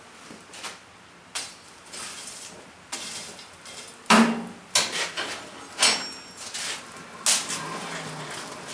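Irregular metal clanks and knocks of blacksmith's tools and tongs, about seven separate strikes at uneven spacing. The loudest comes a little after four seconds in and leaves a short metallic ring.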